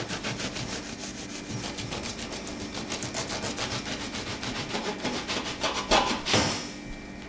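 A long kitchen knife sawing back and forth through a freshly baked white loaf with a hard, thick crust, in quick, even strokes, with one louder stroke about six seconds in before the cut eases off.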